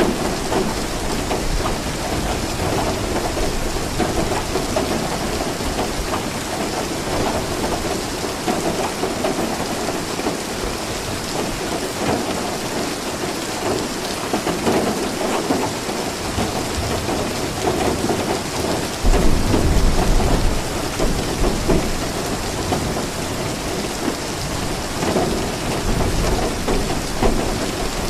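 Steady rain falling, with a low rumble of thunder about two-thirds of the way through.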